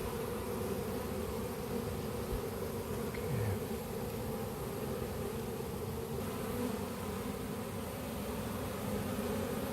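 A honey bee swarm buzzing: the steady hum of many bees flying and clustering close by.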